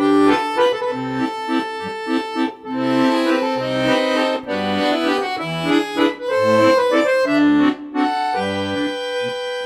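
Upbeat instrumental outro music with a melody over a bouncing bass line on a steady beat, settling into a long held chord near the end.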